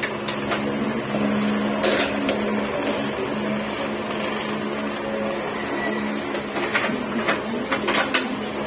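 A steady mechanical hum, like a small electric motor running, with a few sharp clicks.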